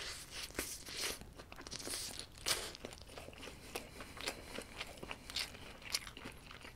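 A bite into a Lotteria Mozzarella In the Burger, then close-miked chewing with many short, crisp crunches and crackles.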